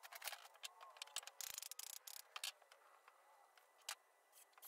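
Near silence, with faint scattered clicks and ticks.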